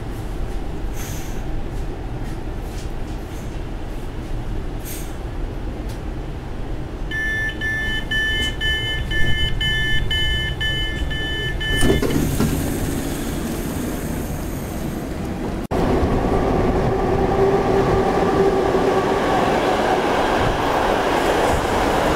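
Newag Impuls electric multiple unit: a low rumble inside the carriage, then its door signal beeping about twice a second for about five seconds. After a sudden cut the train is heard from the platform, running with a steady electric whine.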